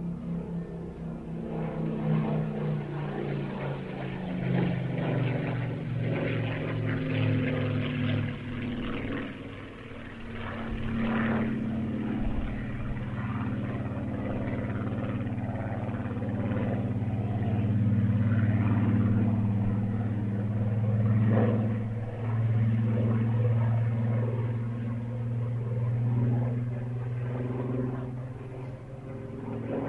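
Supermarine Spitfire's Rolls-Royce Merlin V12 engine running in flight, a steady low engine note that shifts slowly in pitch and swells louder as the aircraft passes close.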